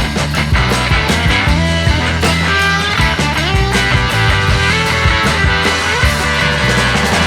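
Rock music with electric guitar and drums, a steady beat.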